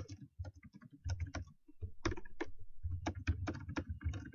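Fast typing on a computer keyboard: quick, irregular key clicks, several a second, with a short pause a little after a second and a half in. The typing is a bit loud.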